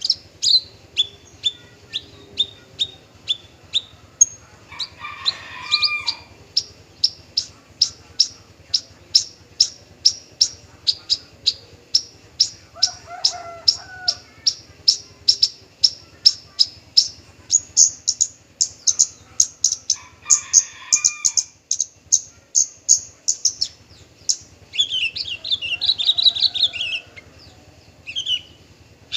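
Male Horsfield's bush lark singing: a long run of short, sharp notes repeated about two or three a second, stepping higher in pitch partway through, broken by a few brief scratchy, warbled phrases.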